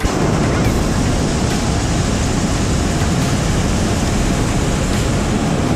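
Hot air balloon's propane burner firing in one long, steady blast.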